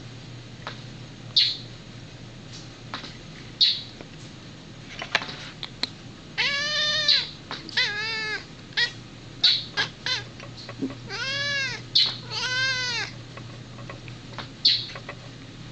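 Domestic cat making drawn-out, whiny, baby-like meows at a bird: four calls that rise and fall in pitch, in two pairs, the first pair about six seconds in and the second about eleven seconds in. Short high chirps come in between.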